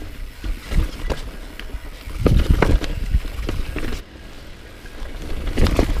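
Commencal Meta mountain bike riding down a rocky trail: a steady low rumble under repeated knocks and clatter as the tyres and suspension hit rocks. The heaviest knocks come about two seconds in, and it goes quieter for a moment around four seconds in.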